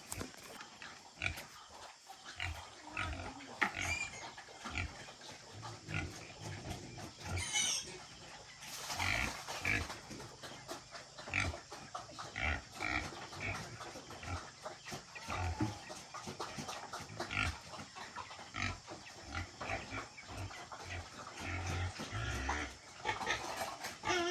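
Pigs grunting in short, irregular bursts, with one higher-pitched call about seven and a half seconds in.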